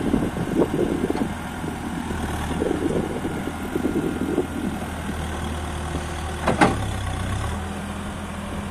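Terex TLB890PS backhoe loader's diesel engine running, with irregular rattling over it for the first few seconds. A single sharp knock comes about six and a half seconds in, then the engine settles to a steady idle.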